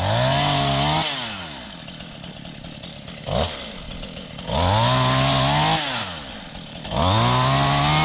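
Stihl two-stroke chainsaw revved up in bursts: it climbs to a high, steady whine for about a second at a time, near the start, in the middle and near the end, and drops back to a low idle between, with one short blip of the throttle after about three seconds.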